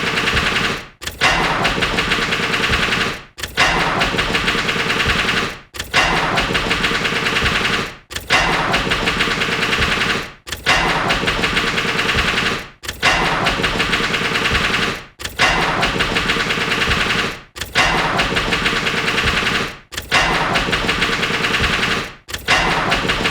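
Car engine cranked on the ignition, catching with rapid chattering pulses and then stalling, over and over about every two and a half seconds. Each try starts suddenly and dies away to a brief silence before the next.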